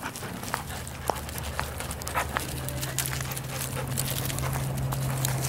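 Dogs moving about on wood-chip ground, with scattered short clicks and scuffs, over a steady low hum.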